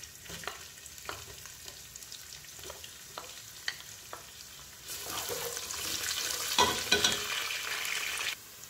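Sliced onions frying in hot oil with whole spices: scattered faint crackles at first, then a loud, steady sizzle with a few sharp clicks from about five seconds in. The sizzle stops suddenly shortly before the end.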